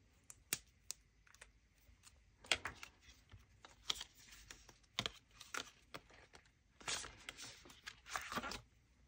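Plastic binder pockets and paper banknotes rustling and crinkling as the pages of a ring-bound cash budget binder are handled and turned. A few sharp clicks come in the first second or so, before the rustling starts.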